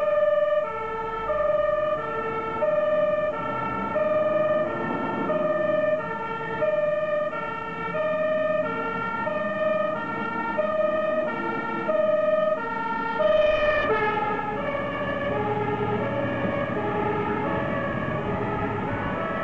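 Dutch fire engine two-tone siren alternating between a high and a low note, changing about every two-thirds of a second. It is loudest about two-thirds of the way through as the truck passes, when the notes drop in pitch and engine noise rises under them.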